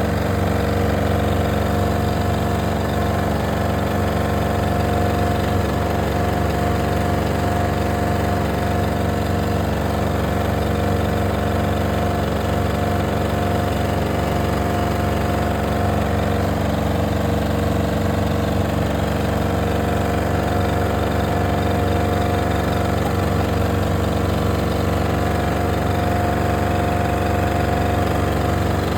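Steady, loud machine hum with a low drone and a few fixed tones, unchanging throughout.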